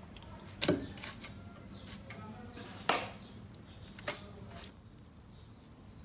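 Utensil clatter against a large aluminium cooking pot as cooked rice is spread in it: three short sharp knocks, the loudest about three seconds in, with faint scraping between them.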